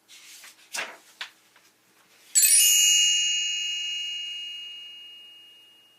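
A few brief swishes, then a bright chime struck once that rings and fades slowly: the page-turn signal of a read-aloud book.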